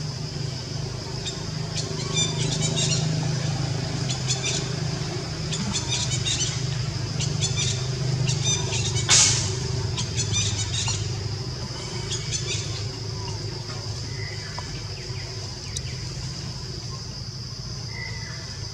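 Outdoor forest ambience: a steady high insect drone with repeated bursts of rapid chirping ticks, over a low engine hum from a passing vehicle that fades out after about ten seconds. A brief loud hissing rustle comes about halfway through.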